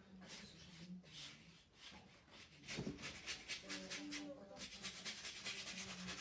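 Faint scratchy rubbing of a paintbrush scrubbing oil paint onto a canvas, in repeated short strokes that come faster from about three seconds in. Faint voices murmur underneath.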